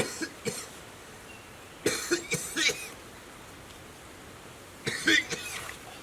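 A man coughing in three short fits, several coughs each, a couple of seconds apart, over a steady background hiss: a sick cough from a cold caught overnight.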